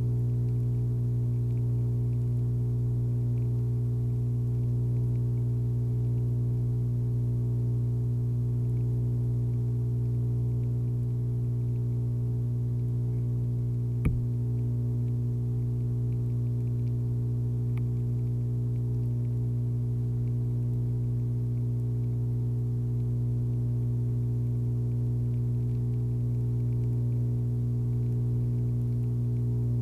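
Steady low electrical hum with evenly spaced overtones, unchanging throughout, with a single sharp click about halfway through.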